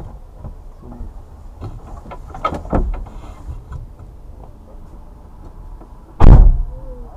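A few knocks and rustles, then a car door shut hard about six seconds in, the loudest sound.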